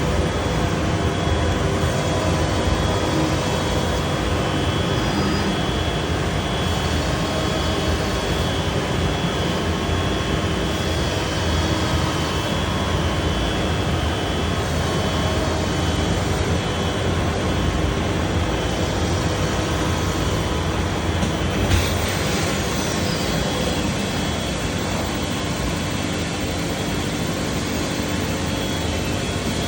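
Biesse Rover K CNC router running, a steady machining noise with a few steady whining tones over it. There is a single sharp knock about 22 seconds in.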